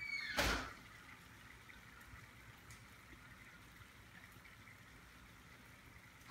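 Hot water and liquid nitrogen bubbling in a glass pitcher as air is blown into it through a straw. A short loud gush comes about half a second in, then steady faint bubbling follows.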